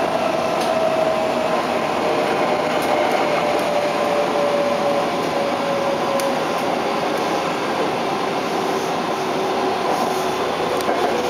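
Kyoto Municipal Subway 10 series car with a Mitsubishi IGBT-VVVF inverter, running: a steady rumble of wheels on the rails with a quiet motor whine that falls slowly in pitch as the train slows.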